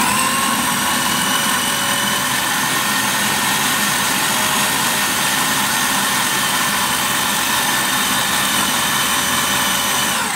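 Countertop food processor running steadily at full speed, a loud, even motor whine as it blends chickpeas, tahini, yogurt and lemon juice into hummus.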